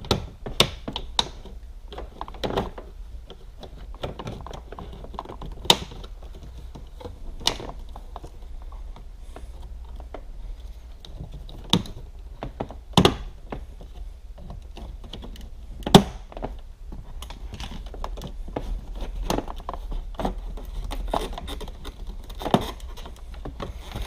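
Plastic dashboard trim panel around the headlight switch of a Porsche Boxster 986 being pried off with a plastic trim removal tool: irregular plastic clicks and knocks, with a few sharp snaps as the clips let go.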